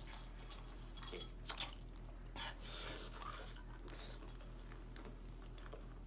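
Faint mouth sounds of a mouthful of Warheads sour hard candies being worked and chewed, with a few soft clicks.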